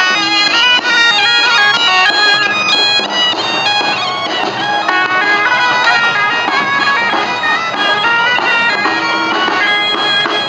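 Traditional folk music played on wind pipes, a quick melody of short notes stepping up and down without a break.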